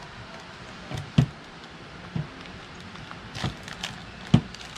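A few soft knocks and taps from handling a wax-paper-lined loaf pan while bacon strips are laid and pressed into it, about six in all, the sharpest about a second in and near the end.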